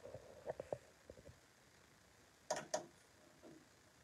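Quiet room with a few faint short sounds early on, then two short sharp clicks close together a little past the middle.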